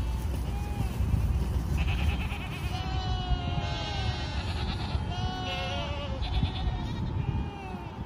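A herd of goats bleating, many calls overlapping one another, over a low steady rumble.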